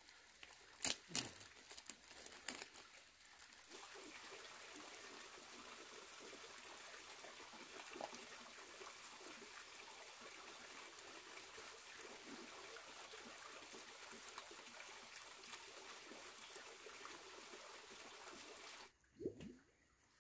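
Soft rustles and taps of hands working plastic bags and seedlings in soil for the first few seconds, then a faint steady rushing like trickling water that cuts off suddenly near the end.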